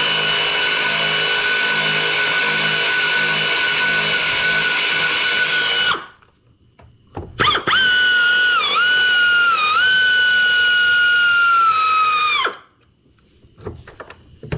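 A power drill spinning fasteners out with a steady high whine: one run of about six seconds, then after a short pause a second run of about five seconds in which the pitch dips twice under load before it winds down. A few light clicks follow near the end.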